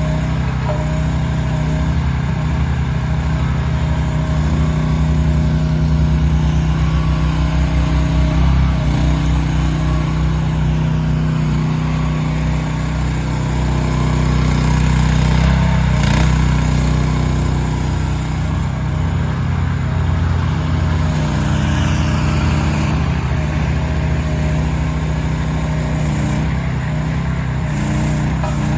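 Lanty mini excavator's engine running steadily, growing a little louder for a few seconds twice as the load changes. A single sharp knock comes about two-thirds of the way through.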